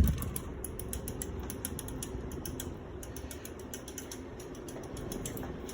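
Casablanca Four Seasons III ceiling fan running on high speed: a steady low hum with a fast, light ticking that runs on throughout.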